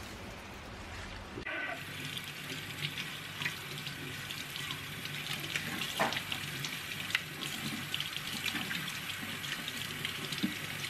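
Kitchen tap running into a stainless steel sink, starting about a second and a half in, while a fresh ginger root is rubbed clean under the stream, with small splashes off the hands.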